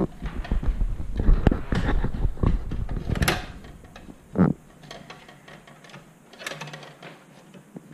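Clicks, taps and rustles of hands working stiff electrical wires into a metal breaker panel, with a low rumble under the first three and a half seconds and one louder knock about four and a half seconds in.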